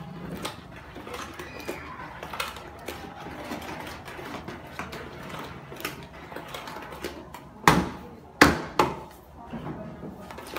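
A wooden stick stirring thick pukis batter in a plastic bucket by hand: soft wet churning with many small taps and clicks. About eight seconds in come three loud knocks within about a second.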